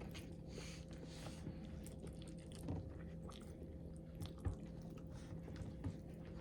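A person chewing ramen noodles close to the microphone, with scattered small wet clicks of the mouth.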